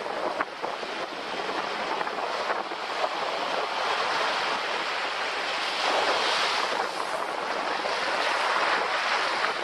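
Ocean surf washing up a sandy beach in a continuous rush of breaking water. In the last few seconds it grows louder as a wave surges in and splashes against the rock right by the microphone.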